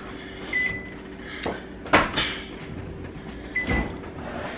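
Microwave oven running with a steady hum. It gives two short high beeps, about half a second and three and a half seconds in, and there are a few sharp knocks, the loudest about two seconds in.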